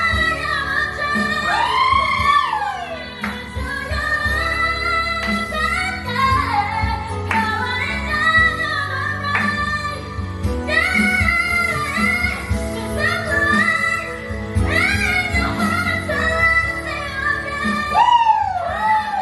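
A song with a woman singing over instrumental backing, her voice sliding up and down in quick runs and swooping glides.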